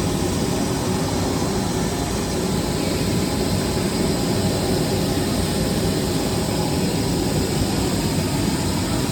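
Woodworking CNC machinery running steadily: an even, loud machine noise that holds without strokes or changes.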